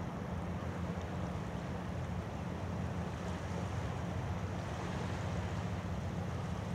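Steady seaside ambience: a low droning rumble under a soft wash of wind and sea water.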